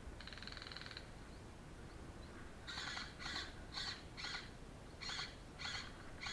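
A bird calling: a short buzzy rattle just after the start, then a run of short harsh calls, about two a second, from a little before halfway on.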